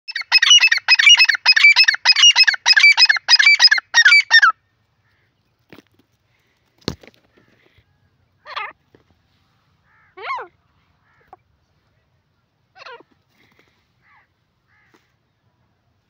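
Grey francolin calling: a loud, fast run of harsh notes, about four a second, that stops after about four and a half seconds, followed by a few softer single calls several seconds apart. A single sharp tap sounds about seven seconds in.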